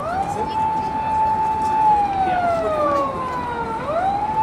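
Emergency vehicle siren wailing: the tone rises quickly, holds steady high for about a second and a half, falls slowly over about two seconds, then rises again near the end.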